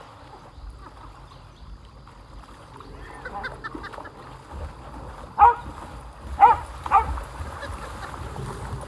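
A dog barking: a few faint yips about three seconds in, then three loud barks about a second apart past the halfway point.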